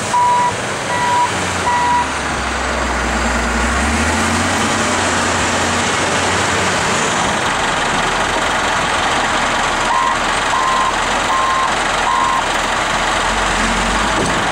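A CAT 928G wheel loader's diesel engine working hard as it backs up and raises its bucket. Its backup alarm beeps in even pulses at the start and again about ten seconds in.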